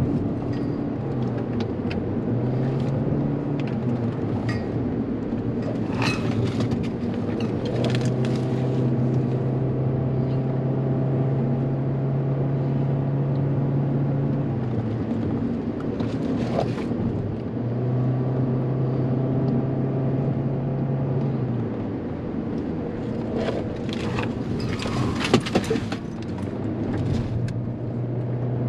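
Inside a Toyota car driven hard on a winding road: the engine drone holds one steady pitch for several seconds at a time and falls away in between as the throttle comes off, over steady tyre and road noise. Several brief knocks and rattles come through, the sharpest about 25 seconds in.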